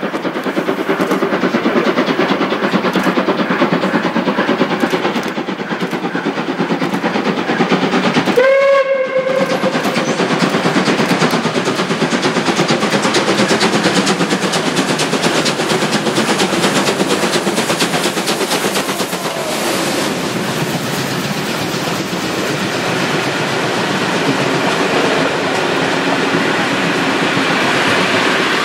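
Three-cylinder class 41 steam locomotive 41 096 working hard, its exhaust beats coming in a fast, steady chuff. It gives one short whistle blast about eight seconds in, and near the end its coaches roll past.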